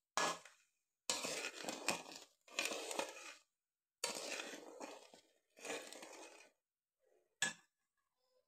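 Slotted steel spatula scraping and stirring across the bottom of a steel pot of dissolving sugar syrup, in five strokes of a second or so each. A short sharp clink of metal near the end.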